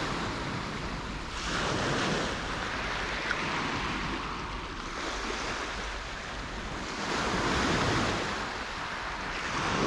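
Small waves breaking and washing over a shingle beach. The wash rises and falls, with surges about two seconds in, again around seven to eight seconds, and near the end.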